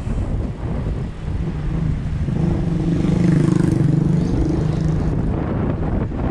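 An engine drone swells up about two seconds in, holds for a couple of seconds and fades, with wind buffeting the microphone throughout.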